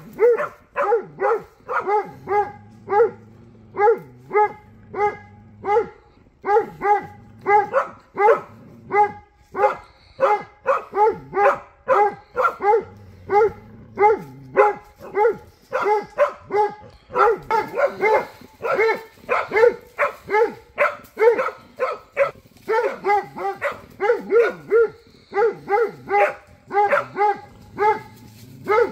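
A hunting dog bay-barking at a wild boar: a long run of rapid, even-pitched barks, about two to three a second, with a few short pauses.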